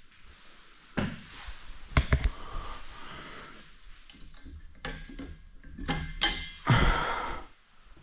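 A series of knocks, thuds and metallic clanks, some leaving a short metallic ring; the heaviest thud comes about seven seconds in.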